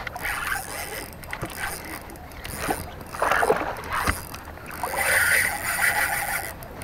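A Shimano Nasci spinning reel being cranked against a hooked pompano on a bent rod, over water lapping and wind on the microphone, with a sharp knock about four seconds in.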